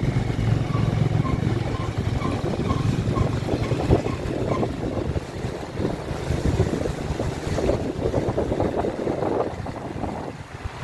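Wind buffeting the phone's microphone while walking outdoors: a steady low rumble with irregular gusty swells. A faint repeated high note sounds about twice a second in the first few seconds.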